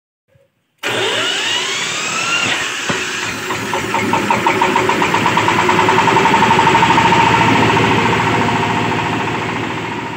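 Red single-cylinder diesel engine, electric-started from a battery, running up to speed while belted to a cassava-chip hammermill; rising whines in the first couple of seconds as things spin up, then a rapid even engine beat with a steady whine, loudest around the middle and easing off near the end.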